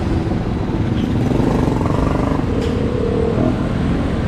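Street traffic noise: motor vehicle engines, motorcycles among them, rumbling steadily.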